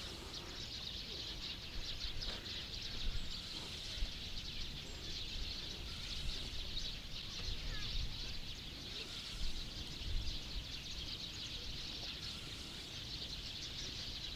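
Steady chorus of small birds chirping, with a low rumble of wind on the microphone underneath.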